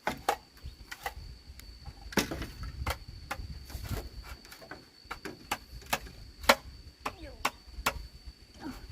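Irregular sharp knocks and clicks, some much louder than others, over a steady high-pitched insect drone.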